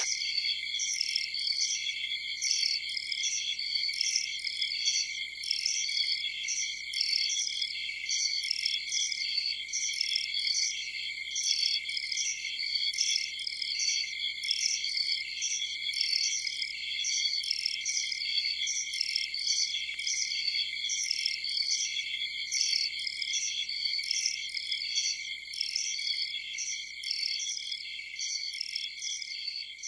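Crickets chirping in a steady, high-pitched chorus of evenly repeating chirps, a night-time ambience.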